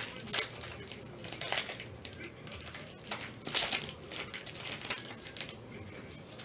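Plastic shrink wrap on sealed trading card boxes crinkling off and on as gloved hands handle and stack the boxes, loudest about half a second in and around three and a half seconds in.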